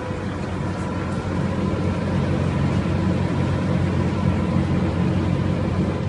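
Packaged air-cooled air-conditioning unit running: a steady low machine hum with an even hiss over it.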